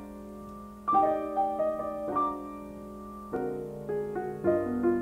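Jazz ballad piano introduction: a phrase of struck chords about a second in, then fuller, lower chords in the second half.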